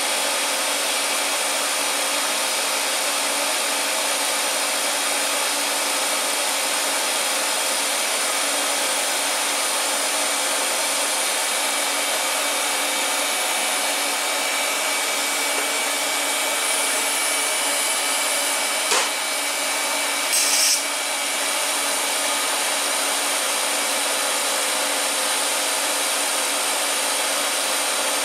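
Steady blower-like hiss with a faint hum from a stainless TIG welding setup, running unchanged whether the arc is lit or not. Near the middle a sharp click, then about a second and a half later a brief high hiss.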